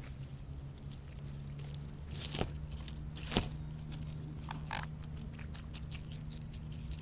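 Mute swans feeding at the water's edge, their bills working at the grass and water with a few sharp clicks and snaps. The two loudest come about two and a half and three and a half seconds in, over a steady low hum.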